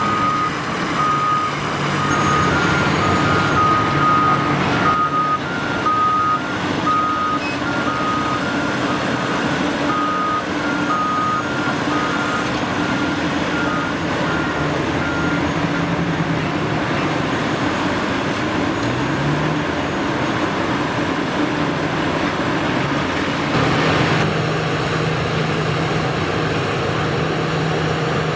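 Heavy diesel engines of a Cat 6015B hydraulic excavator and a haul truck running steadily. Over them, two backup alarms beep at slightly different pitches, and the beeping stops about halfway through.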